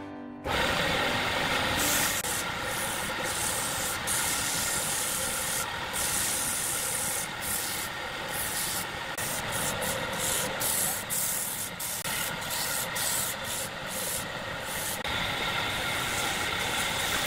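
Wood lathe running steadily, with noise from work on the spinning piece of wood; it starts suddenly about half a second in.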